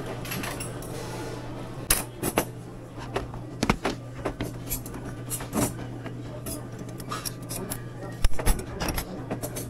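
Scattered clicks and light taps as ropes of candy are handled and laid across a wooden gooseberry cutter, over a steady low hum; the sharpest clicks come about eight seconds in, as scissors cut the candy.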